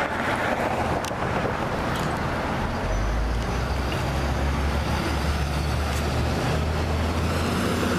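Steady road traffic noise, with a deep vehicle engine rumble setting in about three seconds in.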